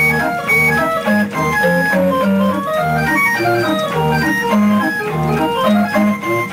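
Organ music accompanying the film, a tune of short held notes over a bass line that changes about twice a second.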